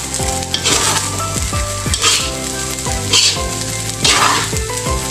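Fried rice sizzling in a metal wok while a spatula stirs and scrapes it, the sizzle swelling with each stroke about once a second, with light clicks of the spatula on the pan.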